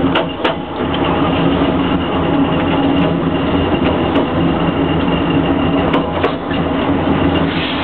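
Narrow-gauge train running as it pulls out of a station, heard from on board: a steady rumble of wheels and running gear with a low hum, and a few sharp clicks as the wheels cross rail joints.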